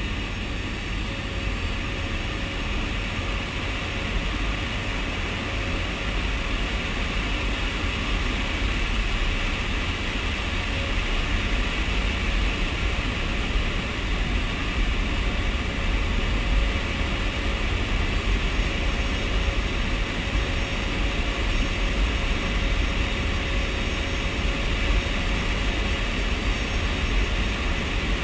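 Steady drone of a C-130J Hercules's four turboprop engines, heard from inside the cargo hold.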